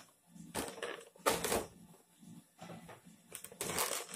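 Clear plastic blister tray and cardboard box packaging being handled, rustling and crinkling in several short bursts, the loudest about a second and a half in.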